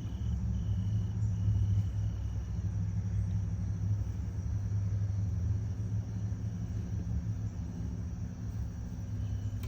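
Steady low rumbling hum, with a faint, broken high-pitched tone in the first couple of seconds.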